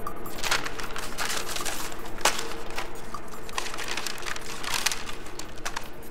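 Paper rustling and crinkling as tissue wrapping and old photographs are handled, in a run of irregular crackles with one sharper crackle a little over two seconds in.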